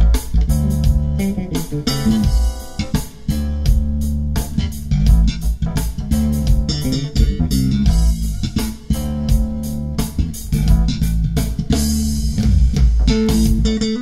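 Bass-led recorded music playing through a Polk Audio Signature S20 bookshelf speaker: electric bass lines over a steady run of percussive hits, picked up by microphones in the room.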